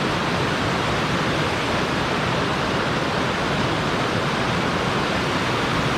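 Steady rushing of a river waterfall, falling water pouring continuously without a break.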